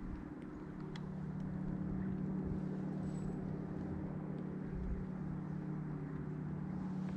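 Bow-mounted electric trolling motor on a bass boat, humming steadily and growing a little louder about a second in.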